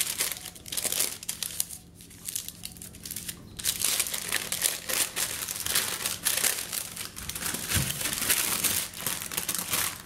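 Paper wrapping crinkling as it is peeled off a hard, chilled log of parsley butter, with a short lull about two seconds in.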